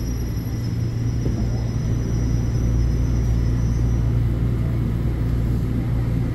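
Toronto subway train heard from inside the car as it slows into a station: a steady low rumble, with a faint high whine that fades out about two-thirds of the way through.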